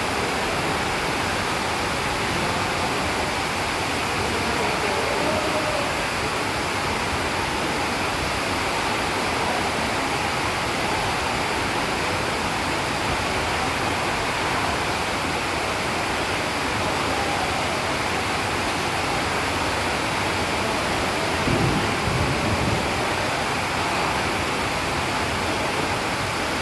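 Heavy rain of a summer thunderstorm: a steady, loud hiss of downpour, with a brief louder low rumble about four-fifths of the way through.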